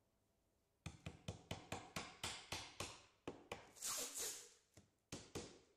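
Plastic protective film being peeled off the face of a roof edge trim: starting about a second in, a quick run of sharp crackles, about four a second, then a longer ripping hiss in the middle and two more crackles.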